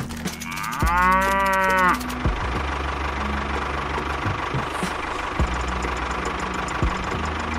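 A cow moos once, a single low call of about a second starting just under a second in. From about two seconds in a tractor engine runs steadily with a fast ticking.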